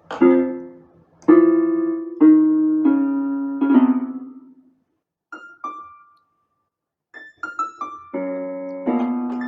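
Yamaha PSR-F51 portable keyboard played with a piano voice: five chords struck about a second apart, each fading away, then two short high notes after a pause, and after another pause a quick run of notes leading into more chords.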